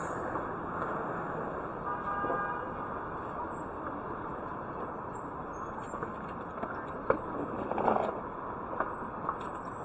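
Busy city street traffic: a steady wash of engine and tyre noise, with a short car-horn toot about two seconds in and a few sharp knocks and clatters near the end.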